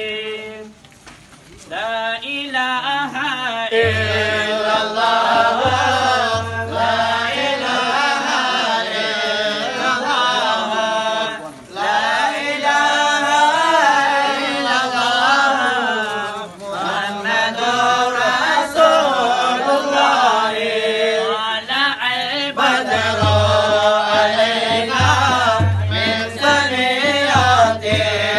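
Devotional chant sung over a steady drone, with a low pulse joining in places.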